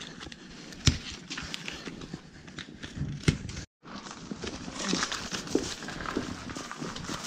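Plastic shrink wrap on new tires crinkling while the plastic strapping around it is cut with scissors, with two sharp clicks about a second in and a little after three seconds. The sound cuts out for a moment just past the middle, then a louder, hissy rustle of plastic wrap follows as a wrapped tire is handled.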